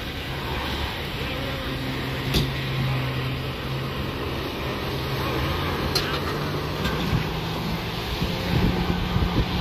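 An engine running steadily at a low idle, with a couple of sharp clicks.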